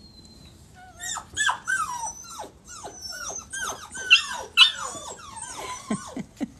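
Retriever puppies whimpering and yipping in a quick run of short, high, falling cries as they crowd into a small tub, loudest a little past the middle, with a few lower, shorter cries near the end.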